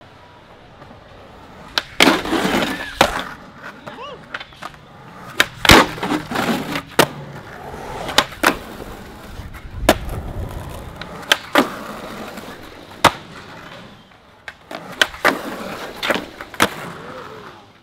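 Skateboard being ridden on a concrete ledge and plaza ground: wheels rolling on rough concrete, sharp tail pops and board landings slapping down, and the trucks scraping along the ledge's edge.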